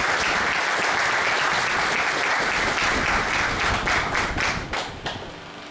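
A small group of people applauding steadily, thinning to a few scattered claps and dying away near the end.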